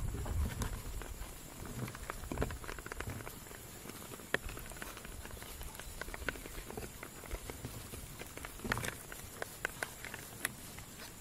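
Muscovy ducks pecking at feed on bare ground and dabbling at a water dish: an irregular patter of quick bill clicks and taps, with a cluster of sharper clicks about nine seconds in.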